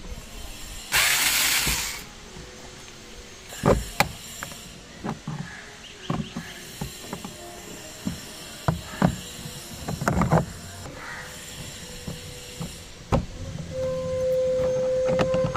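A cordless screwdriver whirs briefly about a second in. Then comes a run of sharp plastic clicks and snaps as a car's interior door trim pieces are pried and pulled loose. A steady hum comes in near the end.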